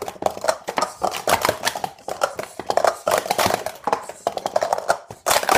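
Plastic sport-stacking cups clattering in quick succession as they are stacked up and down at speed on a mat during a timed run: a dense stream of light clacks that ends in a louder clack just after five seconds in.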